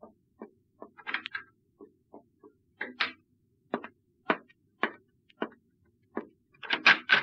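Radio-drama sound-effect footsteps: short, sharp taps, irregular at first, then an even walking pace of about two steps a second, ending in a louder flurry of knocks near the end.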